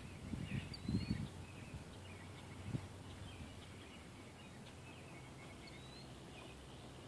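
Quiet outdoor background with small birds chirping now and then, short high chirps with a couple of quick upward slides. A few low thuds come about one and three seconds in.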